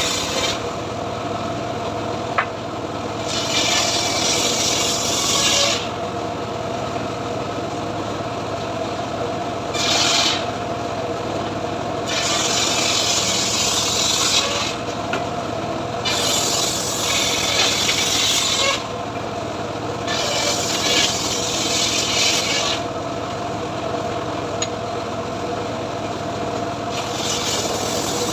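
Homemade srekel sawmill cutting mahogany: its motor runs with a steady hum while the blade's rasping cutting noise comes and goes in spells of one to three seconds, about seven times.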